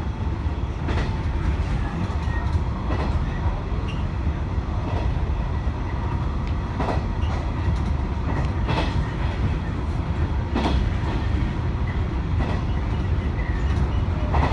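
Train car interior: a steady low rumble with a sharp click about every two seconds.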